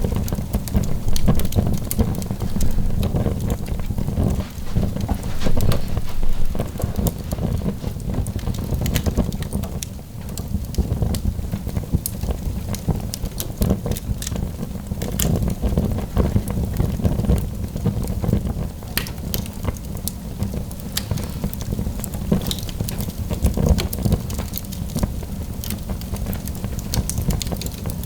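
Wood fire burning in a fireplace, crackling with frequent sharp pops and snaps scattered throughout, over a steady low rumble.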